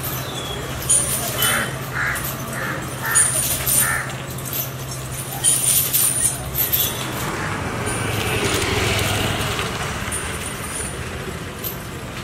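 Outdoor ambience with a steady low hum, a run of five short bird calls evenly spaced between about one and a half and four seconds in, and a swell of broad noise, as of a passing vehicle, around eight to ten seconds in.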